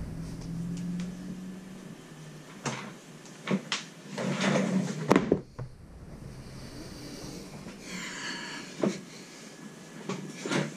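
Scattered knocks, clicks and rustling of objects being handled, with a short rattling scrape about eight seconds in.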